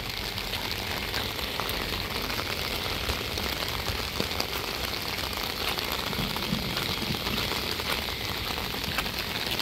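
Heavy rain falling steadily on trees and wet paving, a constant hiss with many scattered sharp drop taps.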